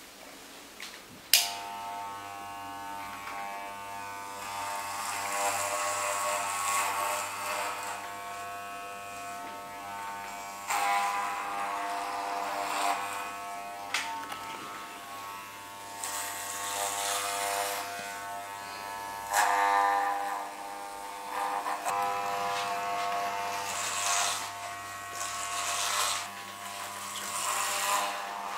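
Corded electric hair clippers switched on with a click about a second in, then buzzing steadily while being run through hair, the sound swelling and fading as they cut.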